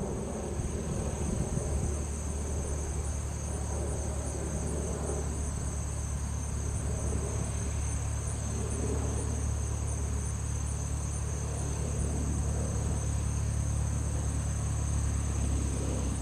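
Insects chirping steadily in a high, continuous shrill, over a low steady drone.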